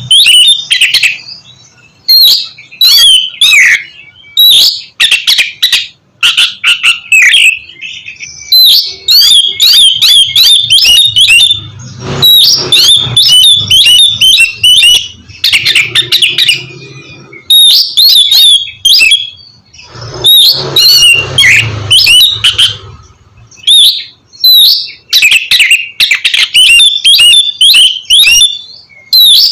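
Oriental magpie-robin (kacer) singing loudly: rapid bursts of varied, sharp whistled and chattering notes, phrase after phrase with short pauses between them.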